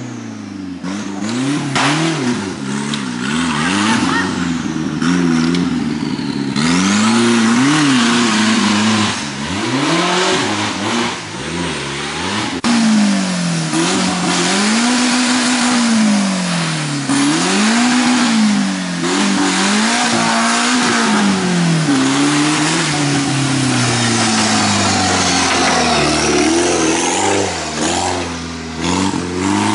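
An off-road competition vehicle's engine revving hard, its pitch rising and falling again and again, each swell lasting a second or two, with a rough noisy wash over it.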